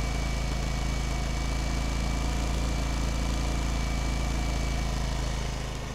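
Hyundai HY2000si inverter generator's small four-stroke engine running steadily, with a thin steady whine over the hum. Near the end the whine fades and the engine gets quieter.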